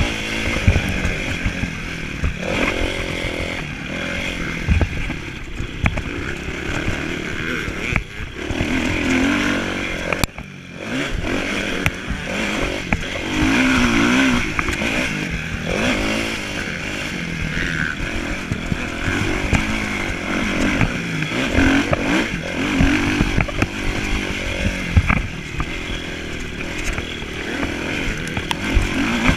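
Kawasaki motocross bike engine revving hard and rising and falling in pitch as the rider races, heard close up from the handlebar-mounted camera. The engine note drops sharply for a moment about ten seconds in, then picks up again.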